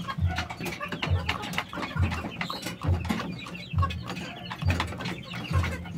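Rooster pecking at its feed with many quick, sharp taps, with a low call repeated about once a second.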